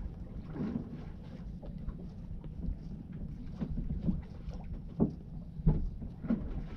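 Small boat at sea: a steady low rumble with wind on the microphone, broken by irregular knocks and thumps, the loudest a few seconds in.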